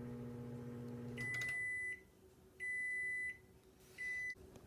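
Microwave oven running with a steady hum that stops about a second in, followed by three long beeps, the last one shorter, signalling the end of a cycle. The owner says the cycle started by itself without anyone touching it.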